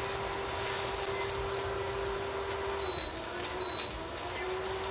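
Induction cooktop beeping twice as its control buttons are pressed, over the steady hum of the running cooker. The hum's pitch sags after the beeps and climbs back as the power setting changes.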